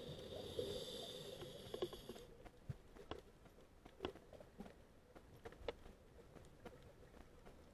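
Muffled underwater sound through a camera housing: a scuba diver's regulator hissing with a breath, cut off suddenly about two seconds in, then faint scattered sharp clicks.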